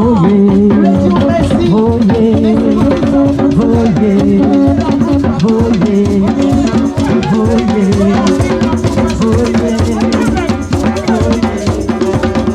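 Music with a steady percussion beat, with drums and rattles under held melodic notes.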